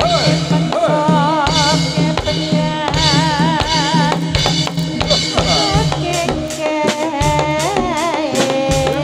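Live jathilan accompaniment music: drums played in a steady rhythm under a wavering melody line, with the drum strokes coming more thickly in the second half.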